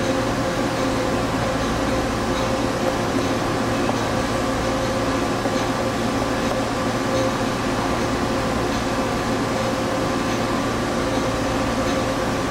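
Cincinnati-Milacron 18C slant-bed CNC turning center running under power: a steady machine hum with a few held tones that neither rise nor fall.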